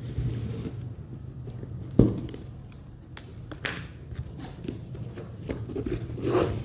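Cardboard shipping box being opened by hand: scissors working at the taped top, then flaps scraping and rustling as they are pulled open, with one sharp click about two seconds in. A low steady hum runs underneath.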